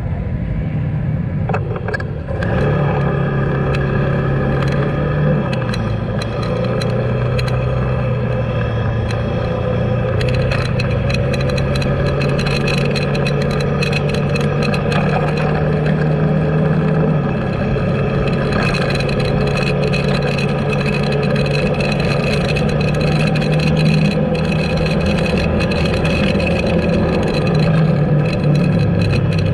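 Motor vehicle engine running while driving along a road, heard from up close with road noise; its pitch steps down about six seconds in and rises again near the end as the speed changes.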